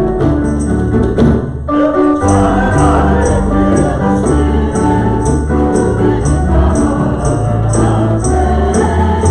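Live worship band playing a hymn: women singing over hand drums, with a steady high percussive beat about three strokes a second. The singing and the beat come in about two seconds in, after a short keyboard lead-in.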